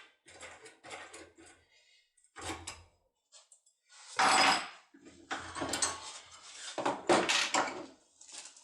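Lock cylinder being worked with a foil impression tool: irregular metallic scraping and clicking as the tool and cam are turned, with a loud rasping burst about four seconds in and more scraping after.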